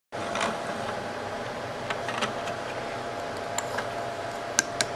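Steady room hum with a thin constant tone, then two sharp clicks near the end as plastic Duplo toys are set down on a wooden tabletop.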